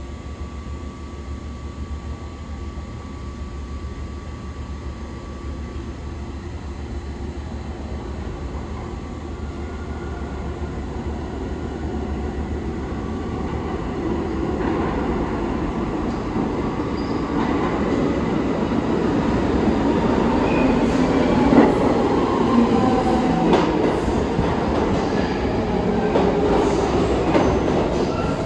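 New York City Subway train approaching and growing steadily louder, then running in with wheels clacking over rail joints and a few brief wheel squeals in the second half.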